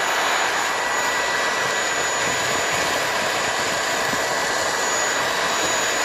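Dibea D008Pro cordless stick vacuum's brushless motor running steadily at its boost setting: a constant rush of air with a steady high whine over it.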